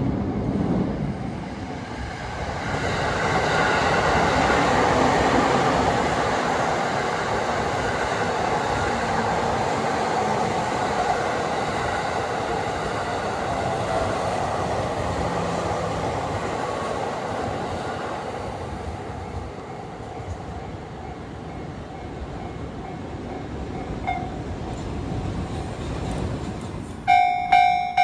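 Joban Line train running over the level crossing, the rail and wheel noise swelling and then slowly fading away. Near the end the level crossing's warning bell starts up, ringing about twice a second.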